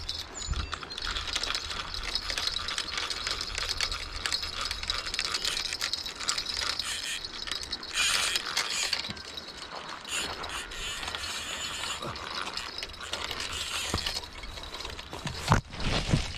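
Fishing reel ratcheting in rapid clicks as line is worked against a hooked fish or a snag, swelling in several spells, with a couple of louder knocks near the end.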